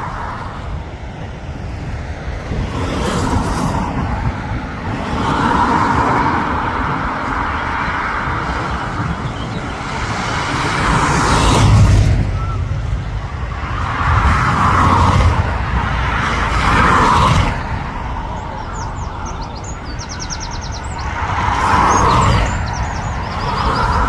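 Strong wind buffeting the phone's microphone, a heavy rumble that swells and eases in gusts every few seconds.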